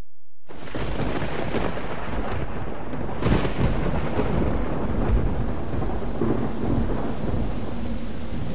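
Thunderstorm: steady heavy rain with rolling thunder, starting suddenly about half a second in, with a sharper thunder crack about three seconds in.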